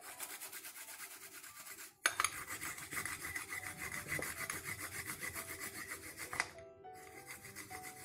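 Small metal hand grater rasping in quick, even strokes as food is grated into a ceramic bowl. There is a brief break about two seconds in, and the strokes stop about six and a half seconds in.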